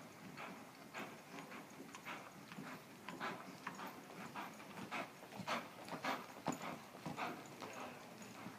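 Hoofbeats of a ridden horse moving fast over deep dirt arena footing, growing louder between about five and six and a half seconds in as the horse comes close.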